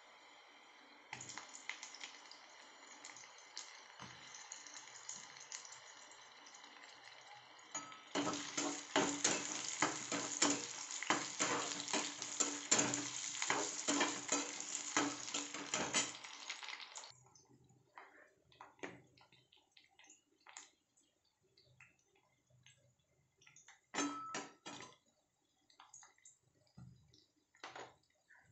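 Onions and oil sizzling in an aluminium kadai, with occasional spatula clicks. About eight seconds in, the sizzle turns loud, with rapid scraping and clattering of a metal spatula against the pan as potato chunks are stirred through the hot oil. At around seventeen seconds the frying drops away to scattered taps and clinks of the spatula on the pan.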